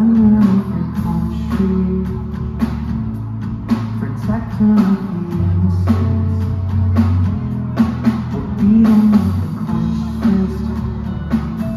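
A rock band playing live: electric guitars over a drum kit, with steady drum hits.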